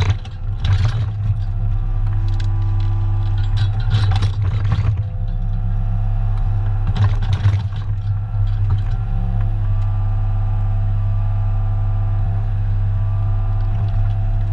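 New Holland mini excavator's diesel engine running steadily under load, with a whine from the hydraulics that shifts in pitch as the boom and bucket move. The bucket scrapes and clatters through soil and roots about half a second in, around four seconds and again around seven seconds.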